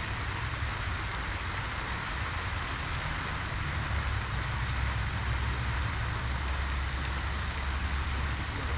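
Steady splashing hiss of a pond fountain's spray falling back onto the water, over a low rumble.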